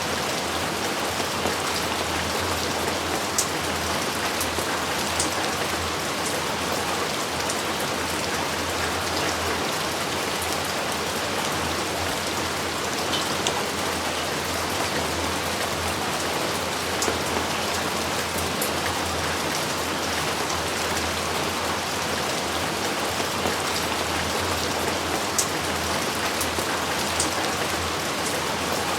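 Steady rain falling, an even wash of noise with a few sharper, louder drop hits standing out now and then.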